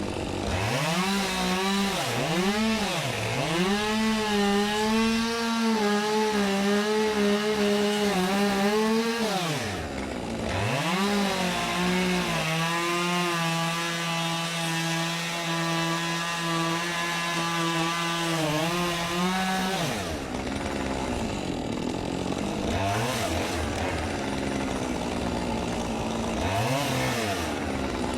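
Two-stroke chainsaw engine revved in quick blips, then held at high speed for two long stretches of about six and eight seconds, dropping back to idle between them; the second stretch runs at a slightly lower pitch. It settles to idle with two short revs near the end.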